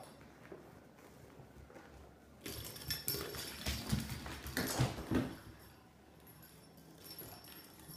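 Kittens scrambling at play: a scuffle of rustling, knocks and thumps that starts about two and a half seconds in and lasts about three seconds.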